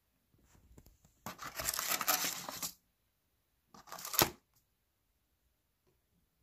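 A plastic sauce sachet torn open with a crackly tearing that lasts about a second and a half, followed about four seconds in by a shorter crinkle of plastic as the sauce tray is handled.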